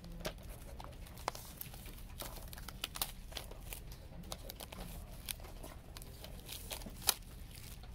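Handling noise from a shrink-wrapped CD box set turned over in the hands: the plastic wrap crinkles, with scattered sharp clicks and taps of the case, the sharpest about seven seconds in.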